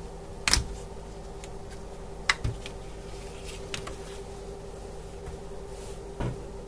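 A few sharp clicks and knocks of plastic and metal as a ribbon cable is unplugged from an inverter's display board and the front cover is handled. The two loudest come about half a second and about two seconds in, over a steady hum.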